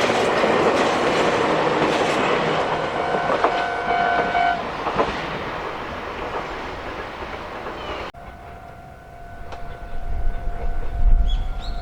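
Meitetsu electric train rattling past over a level crossing while the crossing's warning bell rings; the bell stops about four and a half seconds in and the train noise fades away. After a sudden cut near eight seconds, a crossing bell rings faintly again over a low rumble that grows toward the end.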